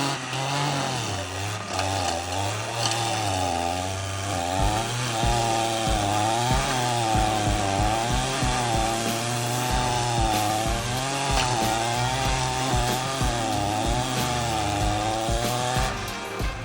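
Stihl chainsaw with a stump-grinding attachment running under load, its engine pitch rising and falling again and again as the cutter bites into and eases off the stump.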